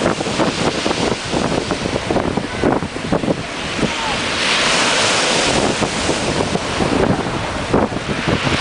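Strong wind buffeting the microphone over the noise of surf. A louder rush of breaking waves swells up about halfway through.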